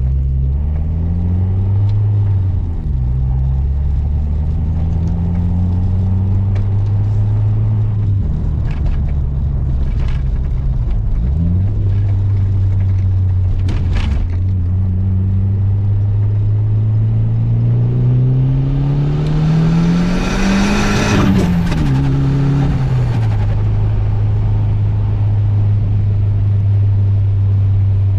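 Mk4 Jetta 2.0 turbo engine running on the road. Its pitch climbs slowly to a peak about 20 seconds in, with a burst of hiss at the top, then drops back and settles. This is from a drive on which the car was misfiring with the check engine light blinking.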